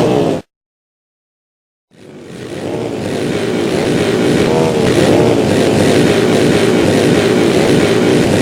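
A motor vehicle running with steady road and engine noise and faint wavering voices within it. It cuts out completely just after the start, then fades back in over about a second and runs on steadily.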